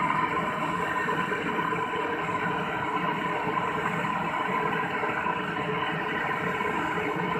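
A steady mechanical running noise with a faint constant hum in it, unchanging throughout.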